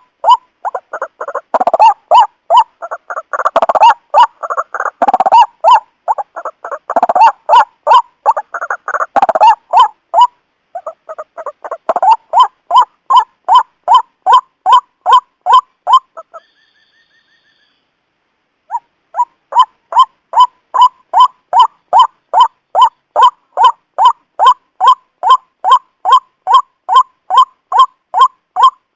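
White-breasted waterhen (ruwak-ruwak) lure call: a long series of repeated call notes, about two a second. The notes are rough and overlapping for the first third, then even and regular, with a pause of about two seconds past the middle.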